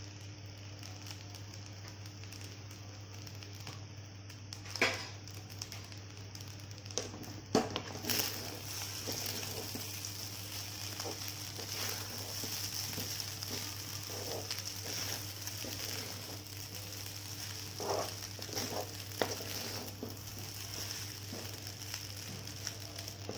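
Wheat vermicelli upma cooking in a pan: a low sizzle that grows louder about a third of the way in, with a few knocks of the spatula against the pan as it is stirred. A steady low hum runs underneath.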